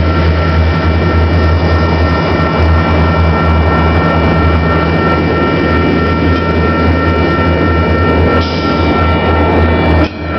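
Union Pacific double-stack freight train passing close by: the diesel locomotives and rolling cars make a loud, steady low rumble over the noise of the wheels on the rails, with a thin, steady high-pitched tone above it.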